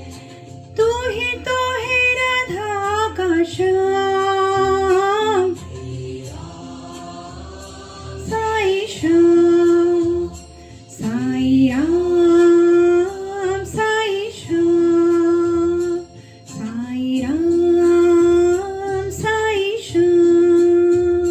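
Hindi devotional bhajan music in a passage without lyrics: a melody in long, held notes over a rhythmic accompaniment.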